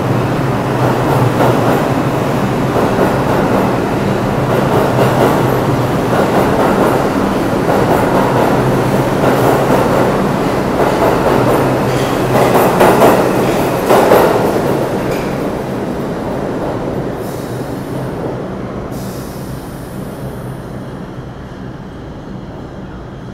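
New York City subway train running past along the platform: a loud, steady rumble of wheels on rail over a low motor hum, loudest briefly about 13 to 14 seconds in. It then fades away as the train goes off into the tunnel.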